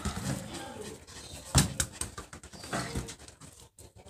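Pomeranian puppies in a wire cage whimpering faintly, with a few sharp knocks, the loudest about one and a half seconds in.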